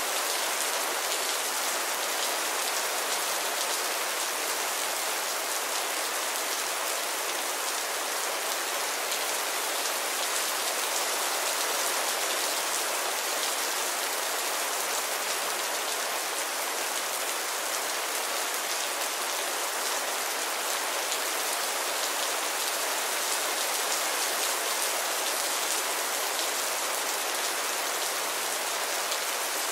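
Steady rainfall: an even hiss of many drops landing on a surface, with no lulls or gusts.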